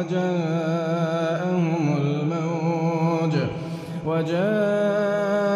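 Male voice reciting the Quran in a melodic chanted style, holding long ornamented notes, with a short breath about three and a half seconds in before the next phrase starts.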